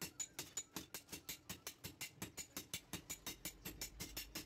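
Hand hammer and two sledgehammers striking hot steel on an anvil in turn, forging a meat cleaver blade: an unbroken, even rhythm of about five blows a second, some with a bright metallic ring.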